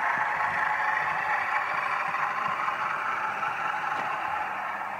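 OO gauge model train, a diesel locomotive with coaches, running along the track: a steady whir with a light rattle of wheels on rail, growing slightly quieter.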